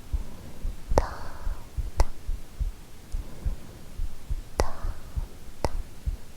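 A real human heartbeat, recorded close up, beating steadily as a run of soft low thumps. Four sharp taps fall over it, two of them followed by a soft breath.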